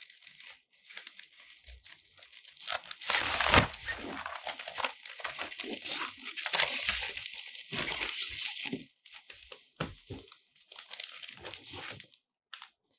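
Rustling and crinkling of a softbox's white diffuser cloth as it is handled and pulled into place, in uneven scratchy strokes, loudest about three seconds in, dying away near the end.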